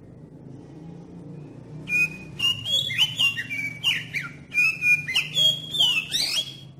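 Oriental magpie-robin (kacer) singing a varied song of clear whistles and quick sliding notes, starting about two seconds in, over a steady low hum.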